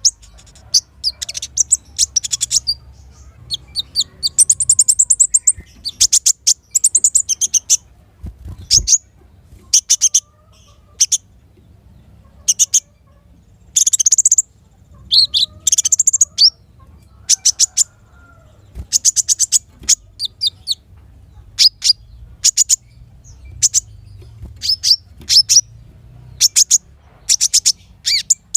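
Sunbird (Indonesian 'kolibri') singing: bursts of rapid, very high, thin chirps and trills, repeated every second or two.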